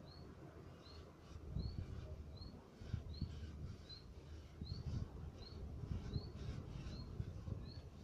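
Gloved hand rubbing and scraping over the clay inner wall of a clay oven, an irregular scuffing that gets louder after the first second or so. Over it, a short high chirp repeats evenly, a little more than once a second.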